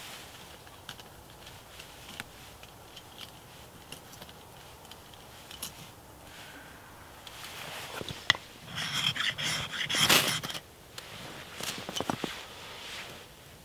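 Close-up handling sounds: scattered small clicks and rustles as white tinder is worked by hand next to a small folding wood stove. A louder run of scraping and rustling comes about nine to ten and a half seconds in, with a sharp click just before it.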